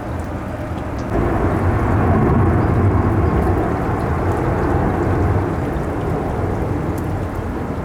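Heavy rain and wind with a loud low rumble that swells about a second in and eases after about five seconds.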